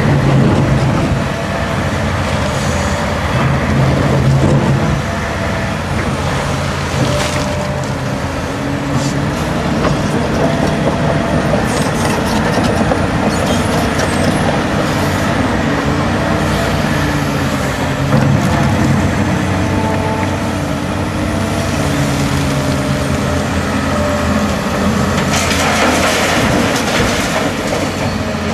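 Diesel engines of a Hitachi Zaxis 350LCN crawler excavator and a four-axle tipper truck running, the engine note rising and falling as they work. Near the end, a broad rushing spill of earth being dumped from the excavator bucket into the truck's steel tipper body.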